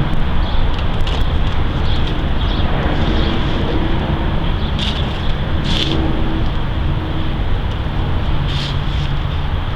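Steady low rumble of outdoor background noise, with a faint hum in the middle and a few brief scratchy rustles.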